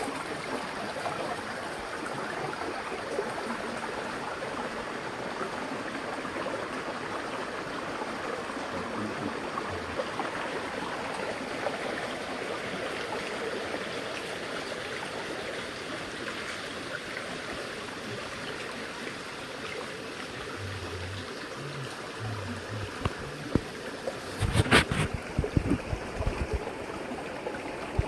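Rain-fed forest stream flowing steadily over rocks, a continuous even rush of water. Near the end a cluster of low thumps cuts in for a couple of seconds.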